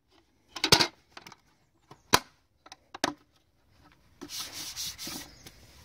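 Hinged plastic lid of a weatherproof outdoor double socket being flipped and snapped shut: a few sharp plastic clicks and knocks. Near the end a hand rubs over the closed lid for about a second.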